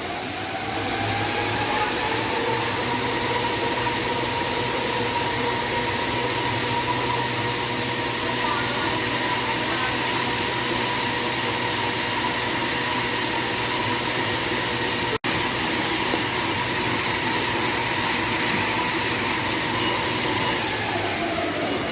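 Blower fan of a ceiling-suspended air conditioner running: a steady rush of air with a motor whine that rises as it spins up and falls away as it winds down near the end.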